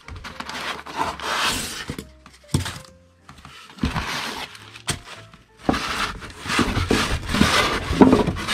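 Cardboard shipping box and its packing insert being handled: repeated rustling and scraping, with a few sharp knocks, as the packing is pulled up and out of the box.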